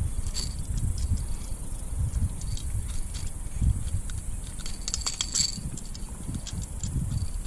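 Uneven low rumble of wind and water around a plastic kayak, with scattered light clicks and rattles of gear on board, a cluster of them about five seconds in.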